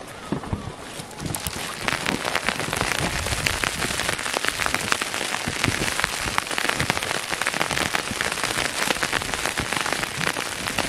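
Heavy wet snowfall pattering steadily, a dense crackle of small ticks that sets in about a second and a half in.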